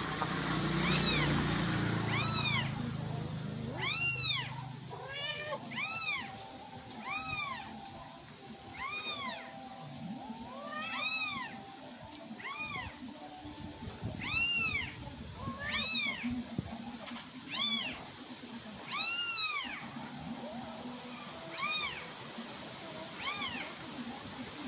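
Kitten meowing over and over, about twenty high-pitched calls roughly one every second or so, each rising and then falling in pitch.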